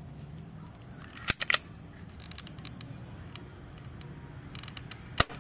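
Spring-powered airsoft pistol fitted with a PVC-pipe silencer, giving sharp mechanical snaps and clicks: a quick group of three snaps about a second and a half in, a few fainter clicks, and one sharp snap near the end.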